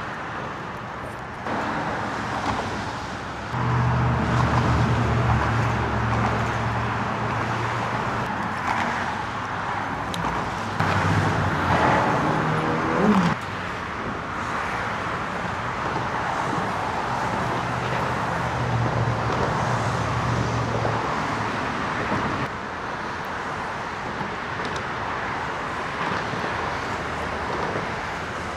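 Road traffic passing: a steady hiss of tyres and engines, with the low hum of a heavier vehicle swelling a few seconds in and again about two-thirds of the way through.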